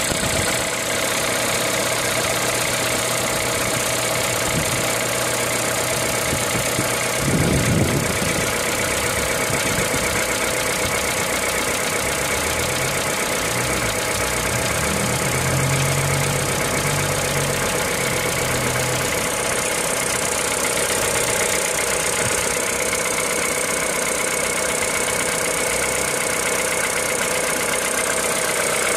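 A machine running steadily, with a brief louder burst about seven seconds in.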